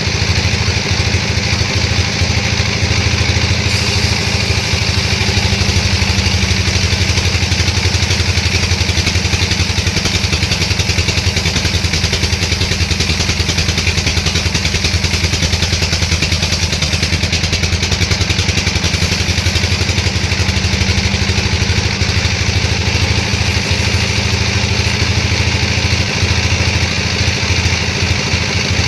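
Sawmill machinery running steadily, a loud engine-like drone with an even pulsing beat that keeps the same pitch throughout.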